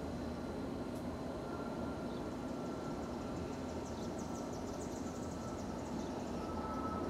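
Steady low background rumble with a faint, steady high tone and a few faint high chirps near the middle.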